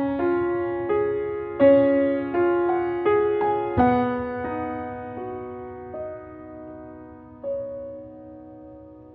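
Gentle background piano music. A slow melody of single notes and chords, thinning out to a few held notes that slowly fade over the second half.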